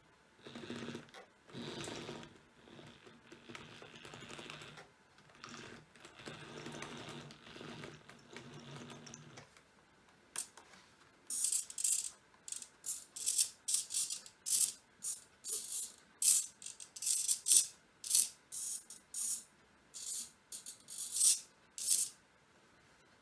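Small hobby servo motors of a head-tracking pan-tilt camera mount whirring in short, repeated bursts as the camera swings. It starts with softer, longer whirs, then about twenty sharp, higher-pitched bursts follow in quick succession.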